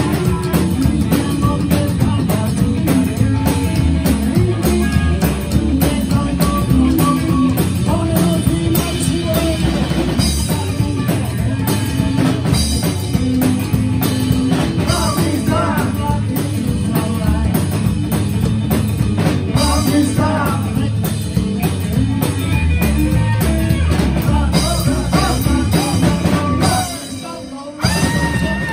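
Live rock band playing loud: upright bass, electric guitar and drum kit, with singing. The band cuts out briefly near the end and then comes back in.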